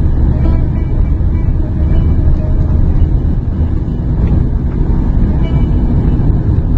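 Steady low rumble of a Renault Mégane driving along the road, mostly tyre and engine noise, heard from the moving car.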